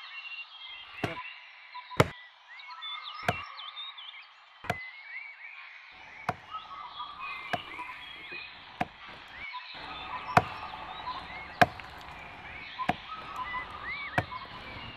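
A blade chopping into a tree trunk in steady, sharp strokes, about one every second and a half, around eleven in all. Steady chirping runs underneath.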